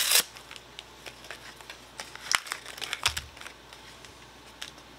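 Foil Lorcana booster pack wrappers crinkling as they are handled. A loud crackle of the foil comes right at the start, then scattered short crinkles and clicks, thickest around the middle.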